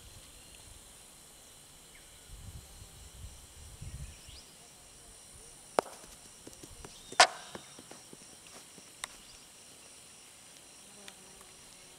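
A wooden mallet strikes a wooden ball with a sharp clack, and about a second and a half later comes a louder, ringing wooden knock as the ball reaches the wooden pins; a fainter click follows about two seconds later.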